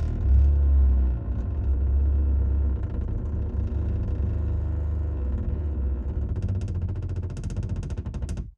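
A low, heavy rumble. A rapid clicking rattle builds over the last two seconds, then the sound cuts off abruptly.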